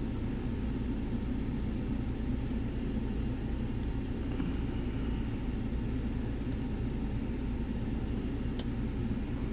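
Steady low background rumble, with a couple of faint clicks from lock picks working the pins of a Nemef NF4 lock in the second half.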